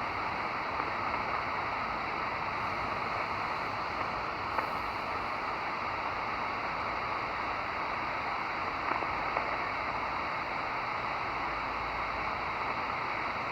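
Steady hiss of band noise from a Grundig G5 shortwave receiver tuned to an empty frequency on the 20-meter amateur band, with a faint steady high whistle.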